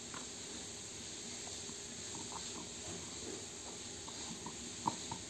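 Faint clicks and taps of clear acrylic panels as the roof piece is fitted onto a small acrylic display case, with a sharper click near the end, over a steady background hiss.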